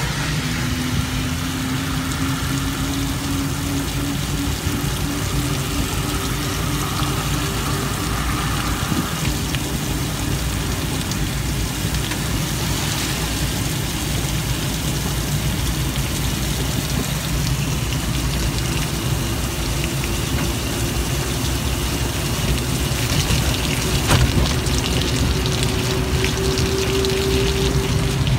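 Organic Transit ELF velomobile rolling on a wet road in the rain: a steady hiss of the tyres and rain, over a low road rumble. A faint whine slowly rises in pitch over the first several seconds, and rises again near the end.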